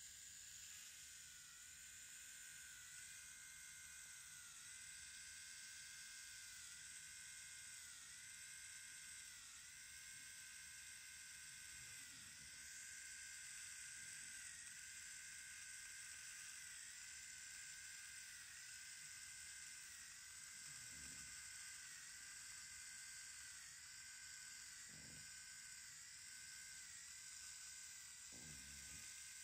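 Faint whine of a motorized FUE punch extracting hair grafts, its pitch dipping briefly about once a second. A few soft low thumps come in the second half.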